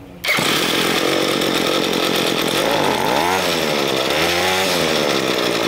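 The two-stroke engine of a Ryobi ES30 string trimmer starts suddenly and runs, its revs dipping and picking up again twice. It is running much better after the main fuel screw was richened half a turn, but it is still slow to accelerate, which the owner takes as a sign that the main mixture is still a little lean.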